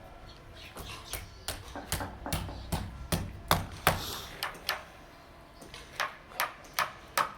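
Hammer blows on formwork, a run of sharp irregular knocks about two to three a second, with a short lull a little past the middle.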